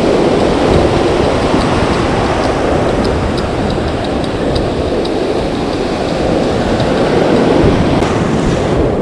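Ocean surf breaking and washing up the beach: a loud, steady rush of water.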